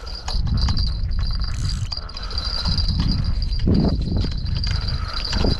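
Wind buffeting the microphone with scattered knocks, over a steady high-pitched insect drone, likely crickets or cicadas.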